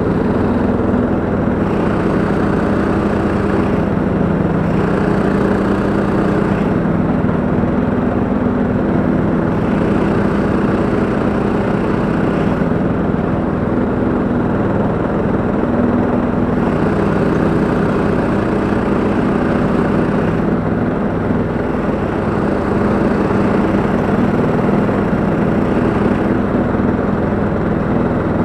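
A Husqvarna LTH 174 ride-on lawn tractor's petrol engine and the towed ATV flail mower's own engine running steadily together while mowing grass, a loud even drone with no change in pitch.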